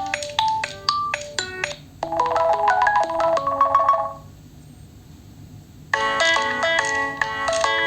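Nokia 3.4 smartphone playing its preset ringtones. A melody of short, quick notes fades out about four seconds in, and after a pause of under two seconds another ringtone starts with a fast pattern of repeated notes.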